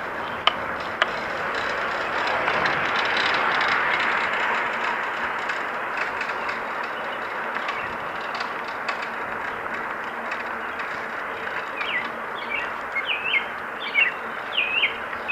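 Steady rolling noise of a bicycle on a paved trail, tyre hum and wind, with a few light clicks. Near the end a bird chirps several short quick notes.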